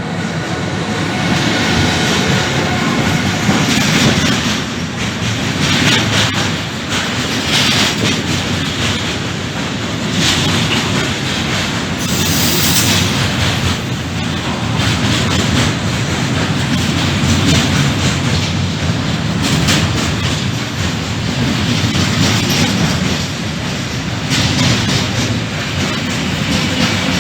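Freight train passing at speed: wagons rumbling and clattering over the rails in a steady, regular beat, with a brief high wheel squeal about twelve seconds in.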